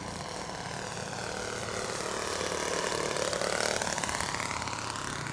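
Small fuel engine and propeller of an R/C Piper Cub model airplane running throttled back on its landing approach, growing louder as the plane passes close, loudest about three to four seconds in, then easing off.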